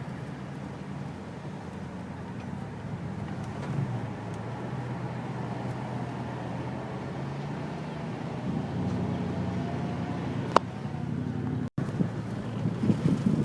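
Car running at low speed: a steady engine hum with road noise. A sharp click comes about ten and a half seconds in, then a split-second break in the sound, followed by a few irregular knocks near the end.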